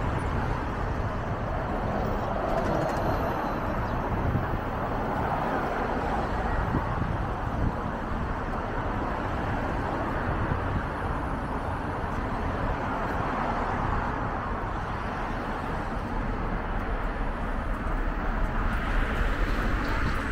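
Steady city street traffic noise: a continuous rumble and hiss of passing vehicles and road noise, heard from a moving bicycle.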